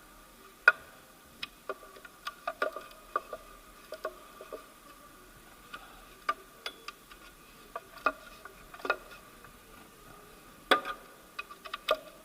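Irregular sharp clicks and light knocks of hand tools and engine parts as the lower timing belt cover is fitted, the loudest about a second in and near the end, over a faint steady high hum.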